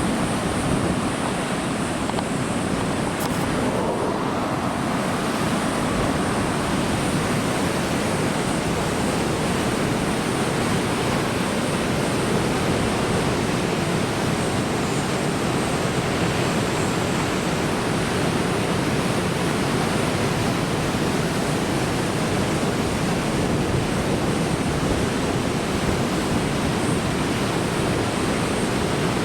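Heavy surf from a typhoon's swell: large waves breaking and washing in one after another, heard as a steady, dense rush of water noise.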